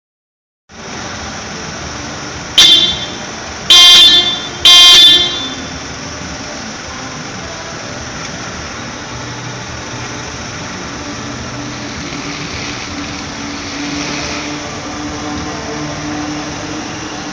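Car horn honked three times, a short toot then two longer ones, over a steady running-vehicle noise.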